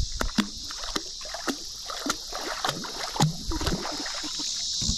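Scattered knocks, splashes and drips as a jug line is hauled in by hand with a gafftopsail catfish hanging from it, over a steady high drone of insects.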